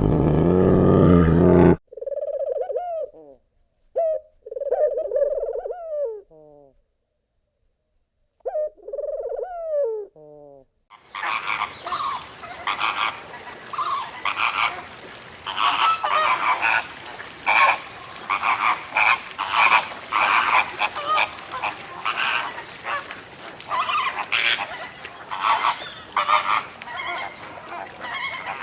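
Animal calls in abrupt clips. A loud, rough call breaks off about two seconds in. Four separate drawn-out calls follow, each rising and falling in pitch. From about eleven seconds a dense chorus of many short, repeated calls runs on.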